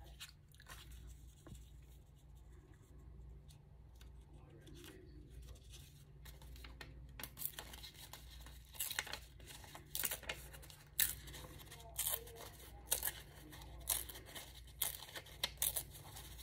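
Paper being torn by hand in a series of short rips, about one a second through the second half, after several seconds of soft rustling as the paper is handled.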